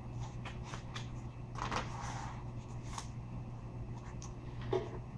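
A paper page of a Little Golden Book being turned and handled: a soft rustle about two seconds in and a few light clicks, over a steady low hum.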